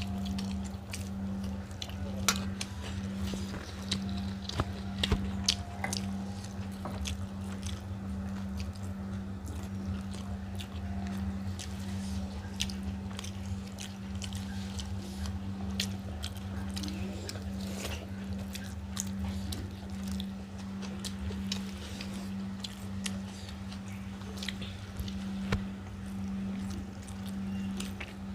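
People eating rice and egg curry by hand: chewing and mouth sounds with scattered short clicks and taps, over a steady low hum.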